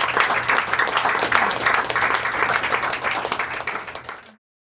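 Audience applauding, fading down and cutting off to silence about four seconds in.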